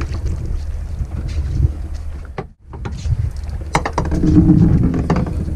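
Steady low wind rumble on the microphone aboard a boat at sea, with a brief drop-out about halfway through and a few light knocks after it.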